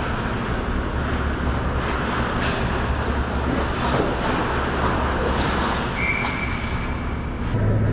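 Ice hockey game sounds on an indoor rink: skates scraping the ice and scattered stick and puck clicks over a steady low rumble, with a short steady high tone about six seconds in.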